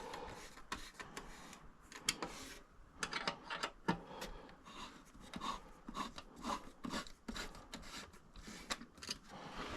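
Hands adjusting and fastening windscreen and bracket hardware on a motorcycle: scattered light clicks and taps with faint rubbing and scraping of plastic and metal parts.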